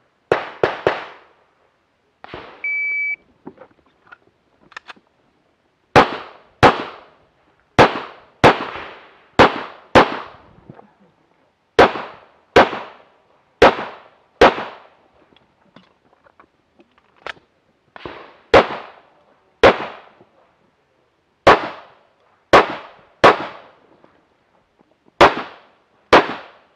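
Shot-timer start beep, then a stage of rapid pistol fire from a Tanfoglio Limited: about eighteen shots, mostly in close pairs (double taps), each a sharp crack with a short echo. Two shots are heard before the beep.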